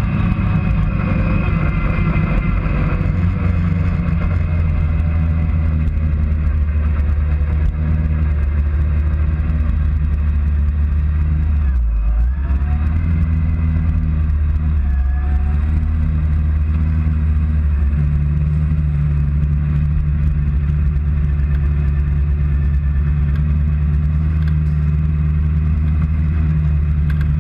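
Motorcycle engine running at low revs as the bike rolls slowly at pit-lane speed, heard from a camera mounted on the bike itself. The revs dip briefly about twelve seconds in, and the note shifts slightly a few seconds later.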